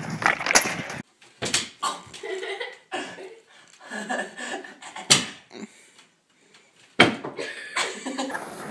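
Knocks and thumps in a small room, with short bits of voices between them. The loudest is a sharp knock about five seconds in, and a noisy rustle starts abruptly about seven seconds in.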